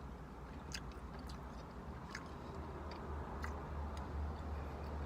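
A person chewing food, with a few soft, scattered mouth clicks over a low steady hum.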